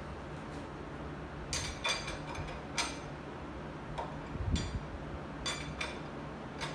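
A handful of light, irregular clicks and ticks as a Harley-Davidson Sportster's spring-loaded front fork tube cap is unscrewed by hand.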